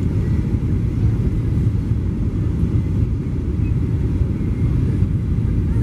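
Steady low rumble of a Boeing 737-900ER's CFM56-7B jet engines and rushing air, heard inside the passenger cabin.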